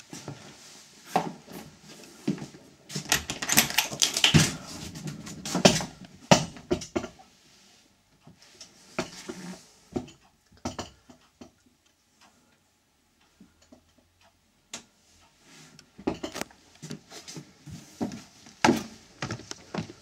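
Irregular knocks, clicks and clatter from someone moving about inside a horsebox lorry and handling its fittings, busiest about three to six seconds in.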